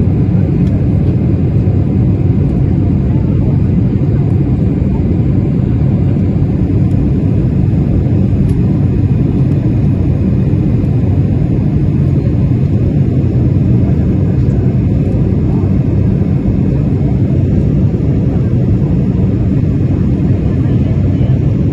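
Jet airliner cabin noise during the climb after takeoff: a steady, loud low rumble of the engines and rushing air, heard from inside the passenger cabin.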